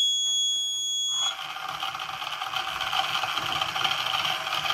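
Piezo alarm buzzer on an Arduino robot car sounding a steady high beep that cuts off about a second in. The car's small DC geared wheel motors then run with a steady whirring.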